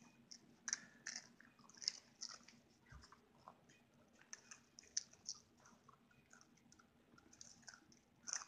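Quiet, irregular crunching and chewing of popcorn, from a puppy and a child eating it side by side.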